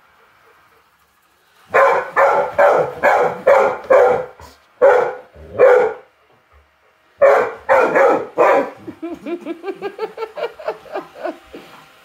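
A dog barking in loud, sharp runs of about two barks a second, breaking off for a moment, then going into a quicker string of quieter, higher yipping barks near the end. The dog is barking agitatedly at a robot vacuum.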